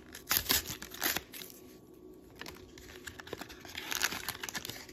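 A trading-card booster pack's plastic wrapper being torn open and crinkled in short bursts, loudest in the first second and again about four seconds in.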